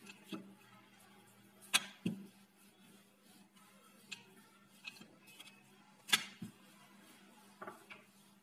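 Rolling pin rolling out dough on a wooden board: quiet rolling with a few sharp knocks, the loudest about two and six seconds in, over a faint steady hum.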